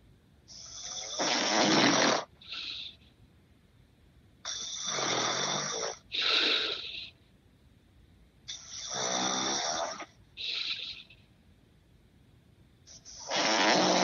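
A sleeping man snoring heavily, one breath about every four seconds. Each long, loud snore is followed by a short, higher-pitched snort. There are three full snores, and a fourth begins near the end.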